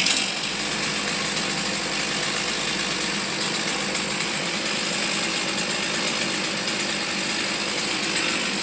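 Steady engine noise from a Komatsu mini excavator running while its grapple holds the willow trunk, with no clear change in speed.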